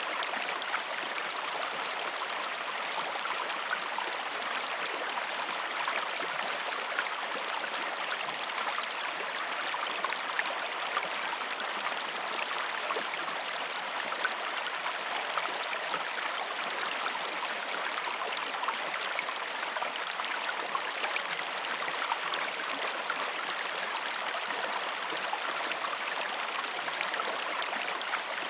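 A river or stream flowing steadily over rocks, a continuous even rush of water with small splashes and trickles throughout.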